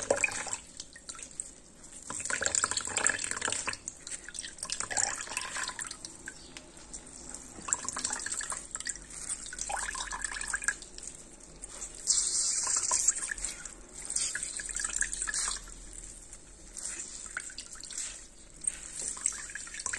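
Sea moss drink trickling and dripping from a wrung dish towel into a plastic jug, the flow coming in uneven surges as the cloth is squeezed.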